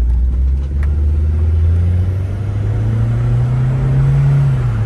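2003 VW Golf GTI's 1.8-litre turbo four-cylinder engine running and climbing steadily in revs, then dropping back a little near the end. It is running again on a newly replaced fuel pump after a crank-no-start fault.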